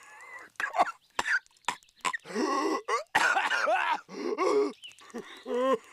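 Cartoon character Patrick Star coughing violently. A string of short, sharp hacking coughs gives way, about halfway through, to longer strained, rasping coughs with voice in them.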